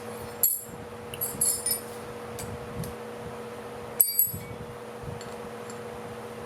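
Light metallic clinks and taps of small metal parts being handled: one about half a second in, a quick cluster a second later and another pair about four seconds in. A steady low hum runs underneath.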